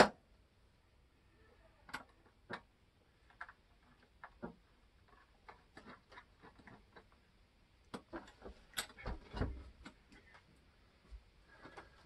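Scattered light clicks and knocks from hands working on a refrigerator set into its cabinet, with a busier run of knocks and a dull thump about nine seconds in.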